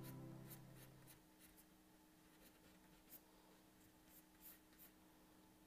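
Faint short strokes of a pencil on paper, a few scratches scattered through an otherwise near-silent stretch. Soft background music fades out during the first second.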